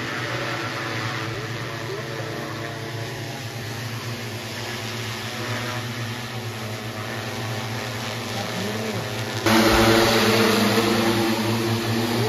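Multirotor agricultural spraying drone flying, its rotors giving a steady hum of several pitches. About nine and a half seconds in the sound suddenly becomes much louder, with a strong rushing hiss of rotor wash.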